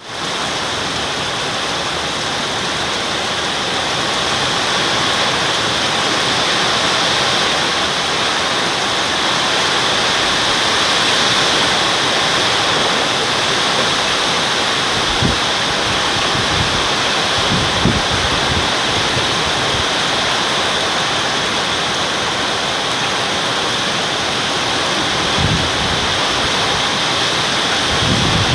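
Heavy rain pouring steadily in a strong wind storm, a dense, even hiss. Several short low gusts of wind buffet the microphone in the second half.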